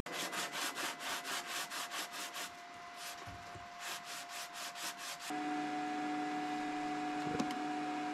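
Brisk back-and-forth rubbing strokes, about four to five a second, of a flat pad pressed down on a desk cutting mat, over a faint steady whine. About five seconds in, this cuts to a steady hum with several held tones.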